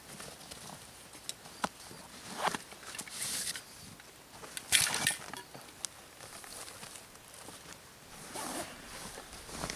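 A canvas backpack being handled: fabric rustles and scrapes in short bursts as straps are undone and a pouch is opened, with small clicks from the metal buckles. The loudest rustle comes just under halfway through.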